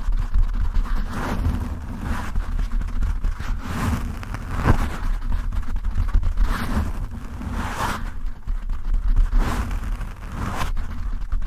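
Fingertips and nails scratching and rubbing a foam microphone windscreen right on the mic: a rough, scratchy rustle in repeated strokes about once or twice a second, over a heavy low rumble.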